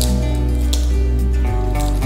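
Background music with steady held notes and a strong bass, with a couple of short crisp crunches from a large puffed kerupuk cracker being bitten.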